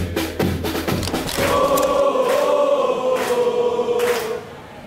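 Football supporters' crowd chanting in unison to drums. Drums beat at first, then the crowd holds a long sung note with a sharp hit about once a second, and it dips near the end.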